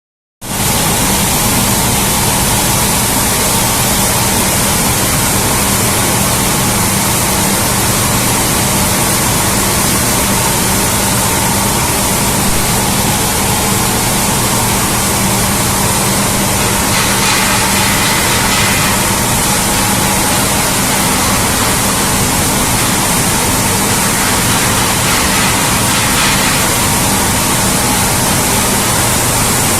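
Plastic film recycling and washing line machinery running steadily: a loud, even rush of noise with a low motor hum underneath.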